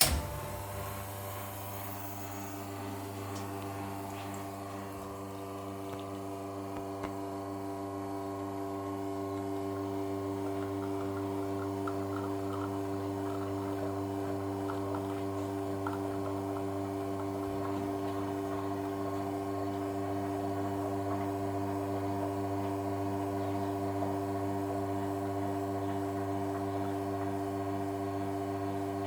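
Expobar Zircon espresso machine's pump switching on suddenly and running with a steady hum, growing slightly louder over the first ten seconds.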